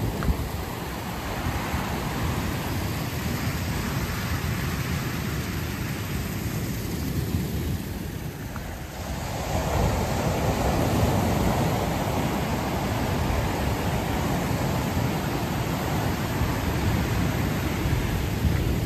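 Ocean surf washing up a cobblestone beach, with wind on the microphone. After a brief lull about halfway through, a fresh wave surges in louder.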